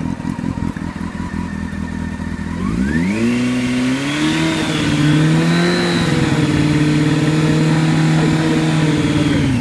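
Honda CBR600F's inline-four engine idling, then revved up about 3 seconds in and held steady at around 5000 rpm for a charging-voltage check, starting to drop back at the very end.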